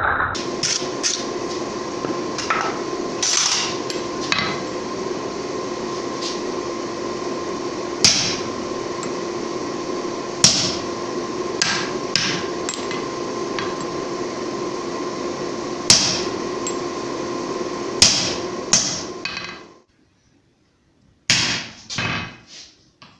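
Single hammer blows on steel, sharp and ringing, spaced a few seconds apart, over a steady hum with a low and a higher tone. The hum cuts off suddenly about twenty seconds in, and two or three more blows follow.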